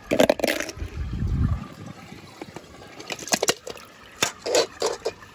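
Water splashing as a small toy car is dunked in a bowl of water, then several short splashes and knocks near the end as a wet plastic capsule is handled.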